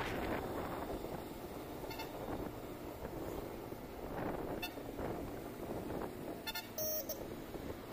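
Steady wind rush and road noise while riding a TVS Jupiter 125 cc scooter, its engine barely heard under the wind. A short vehicle horn honk sounds about seven seconds in.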